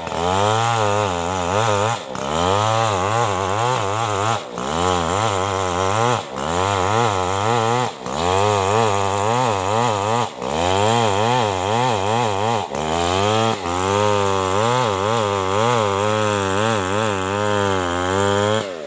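Chainsaw running under load as it rips through a coconut trunk, its pitch wavering continuously and dipping briefly about every two seconds.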